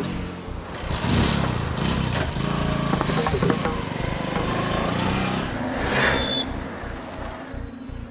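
Street traffic: motor vehicles running and passing, with a low engine throb and faint voices underneath; the noise swells about a second in and again around six seconds.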